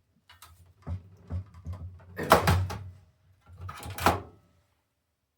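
Knocks and scraping of a desktop computer power supply being handled and turned over, with two louder clunks about two and four seconds in.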